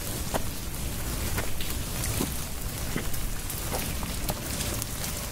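Steady heavy rain, with louder single drips and splashes standing out at irregular moments.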